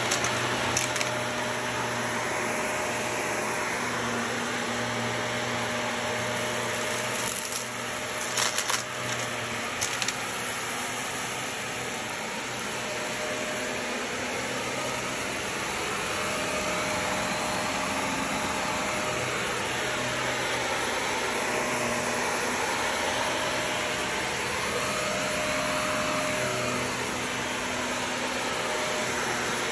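Shark upright bagless vacuum running steadily as it is pushed back and forth over carpet. A few sharp crackles of grit being sucked up come right at the start and again around eight to ten seconds in.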